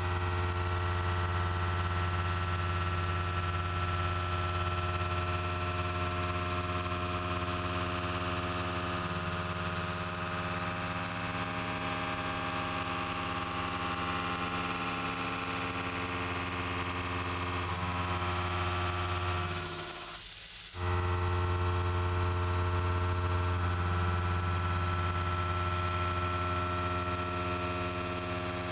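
Background music: sustained synthesizer chords over a steady bass, changing every few seconds, with a brief break about twenty seconds in.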